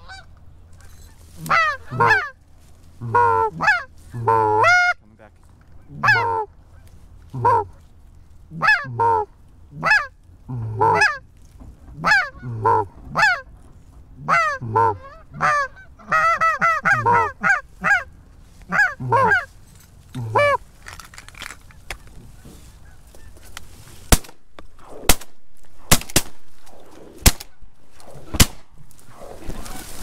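Canada goose honking: a long series of up-slurred honks about a second apart, with a quick run of clucks around the middle, stopping after about twenty seconds. Several sharp clicks follow near the end.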